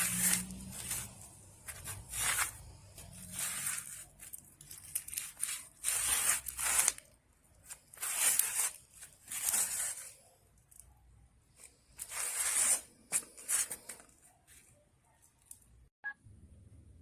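A series of short, crisp rustling or scraping strokes, about a dozen over the first fourteen seconds, after which they stop.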